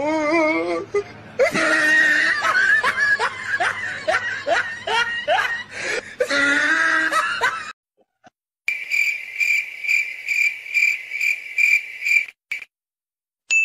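A person laughing heartily in repeated bursts for about seven and a half seconds, then, after a brief pause, a steady run of evenly spaced, high cricket chirps for about three and a half seconds.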